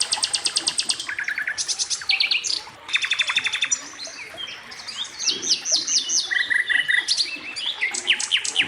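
A songbird singing a string of varied phrases: fast trills of rapidly repeated notes, short chirp series and quick downward-sweeping whistles, separated by brief pauses.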